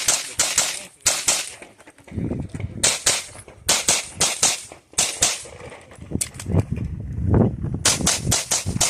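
Sig Sauer P320 pistol fired in quick pairs and short strings of shots, with brief pauses between strings, and a low rumbling noise under the middle stretch.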